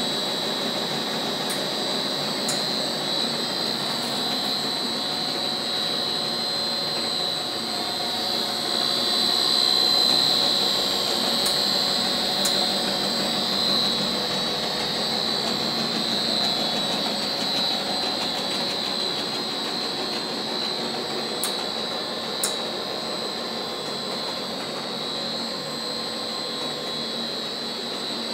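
Small plastics extruder running: a steady machine noise with a high whine over a low hum. Faint clicks come in pairs a second apart, about every ten seconds.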